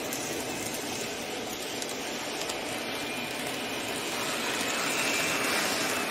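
N-gauge model diesel railcar train running on the layout track: a steady rolling, motor-driven noise that grows louder as the train comes round the curve toward the microphone, with a faint whine over the last few seconds.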